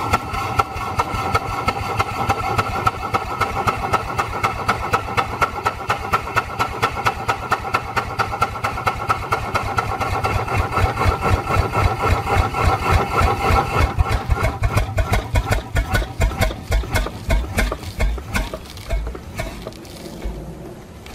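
Atlas automatic steam engine running, its exhaust beating in a quick, steady rhythm over a steam hiss. Over the last several seconds the beats slow, spread out and fade as the engine runs down. The beats come while its valve timing is being field-adjusted and is still off; the adjustment is going the wrong way.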